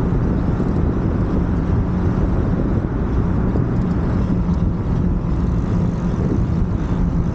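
Moped engine running steadily under way, with a steady hum and a constant rush of wind noise over it.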